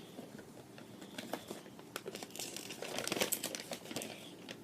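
Paper instruction sheet being unfolded and handled, crinkling and rustling, busiest from about two seconds in.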